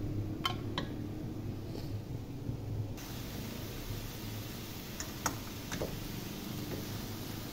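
A spoon clinks lightly against a metal pot and bowl a few times, twice near the start and three times about two thirds of the way through, as thick khoya is scraped into grated carrots and stirred. A steady hiss sits under it and grows brighter suddenly a little under halfway through.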